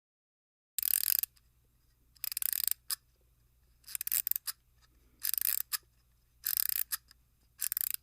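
A sound effect of six short rasping strokes, each about half a second long and coming a little over a second apart, most followed by a small click, over a faint low hum.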